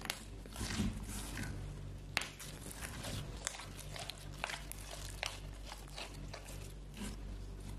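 Glossy slime being squeezed and kneaded by hand, making irregular sticky clicks and squelching pops.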